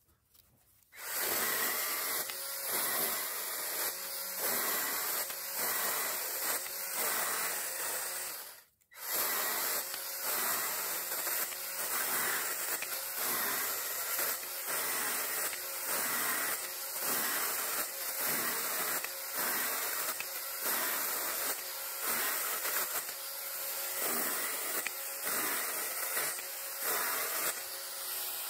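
Worx WG324E 20 V cordless pruning saw running and cutting a branch into short pieces, its chain biting through the wood in repeated cuts with a rise and fall in loudness every second or so. It starts about a second in and stops briefly about nine seconds in. The sound is played at double speed.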